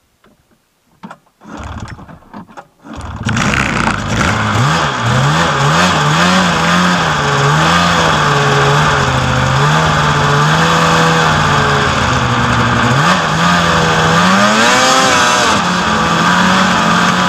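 Snowmobile engine running, coming in loud about three seconds in after a few knocks, its pitch rising and falling as the throttle changes.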